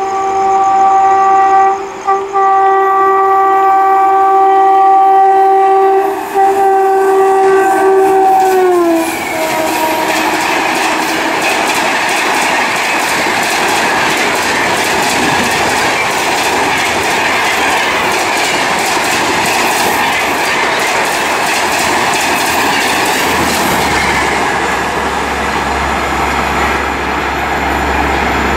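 An Indian Railways electric locomotive sounds its multi-tone horn in one long blast, broken twice, as it approaches. The horn's pitch drops about nine seconds in as the locomotive passes, and then the coaches rush by at speed with a steady roar of wheels on rail.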